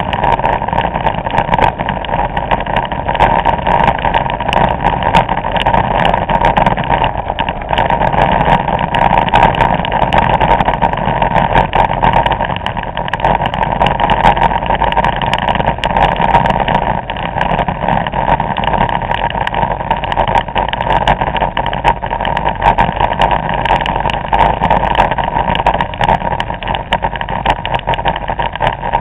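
Vespa scooter riding at a steady cruising speed: the engine running under a loud, steady rush of wind noise on the microphone.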